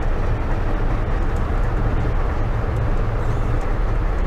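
Steady drone of a 1974 Cadillac hearse's 7.7-litre V8 engine and tyre and road noise while cruising, heard from inside the car.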